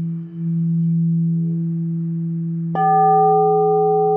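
Two singing bowls sounding together. One holds a steady low hum throughout. Near three seconds in, a higher-pitched bowl is struck and rings on over it.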